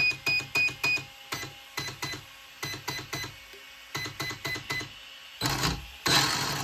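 Hobbywing EZRUN Max ESC beeping through the Traxxas 2400 kV brushless motor as it is set up with the transmitter: a quick run of short high beeps, then a slower series of beeps at a slightly lower pitch, with small clicks between. Near the end the motor spins up briefly twice with a whir, turning the wrong way round.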